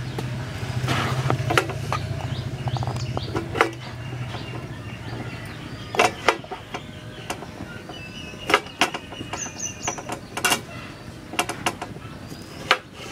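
Kitchen knife cutting cauliflower florets on a wooden chopping board: irregular sharp knocks and snaps as the blade cuts through the stems and meets the board.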